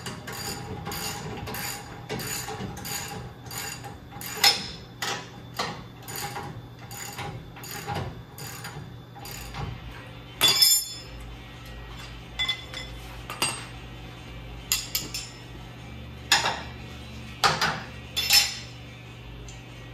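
Ratchet wrench turning a lock nut on a front-suspension control-arm bolt: a regular run of clicks, two or three a second, for the first half. Then scattered metal clinks of tools and parts being handled.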